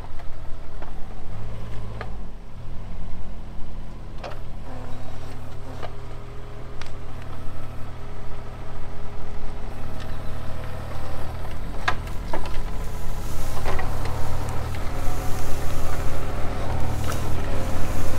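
Kobelco mini excavator's diesel engine running under load while the hydraulics work the boom and grapple pulling stumps, with several sharp knocks through it.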